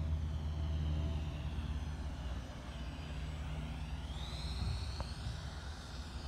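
Electric ducted fan of an E-flite F-15 64 mm RC jet whining in flight. Its pitch dips, then rises about four seconds in.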